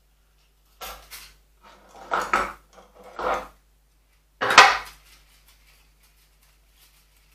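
A coil of bonsai wire being handled and unwound: four short bursts of light metallic rattling and rustling, the loudest about four and a half seconds in.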